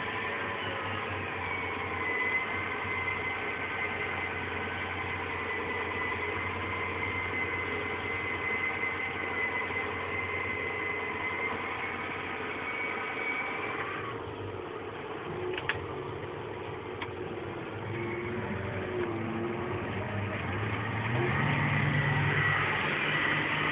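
Tractor engine running, heard from inside the cab, with a thin steady high whine over the engine hum. About fourteen seconds in the whine stops, two sharp clicks follow, and near the end the engine note rises.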